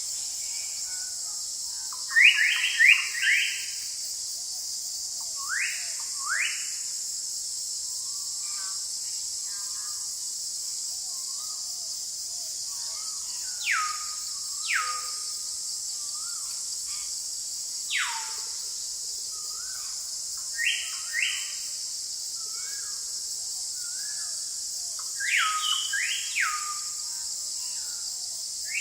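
Forest ambience: a steady high-pitched insect chorus under bird calls. The calls come in clusters of quick upward-sweeping whistles, about two seconds in, around six seconds, near twenty-one seconds and around twenty-six seconds. Between them, about halfway through, come three long whistles that slide steeply down.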